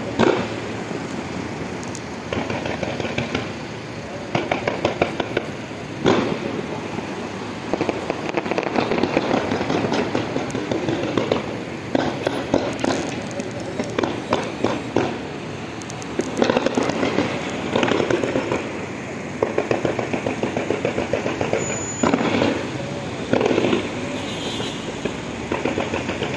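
Fireworks going off in repeated volleys of rapid crackling pops, a new cluster every second or two over a continuous hiss of bursts.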